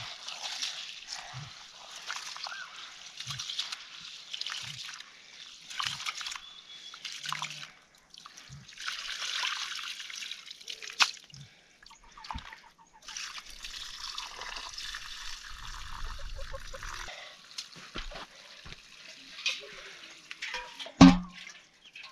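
Water trickling and splashing in stretches of a few seconds, with short pauses and scattered small knocks; one louder knock near the end.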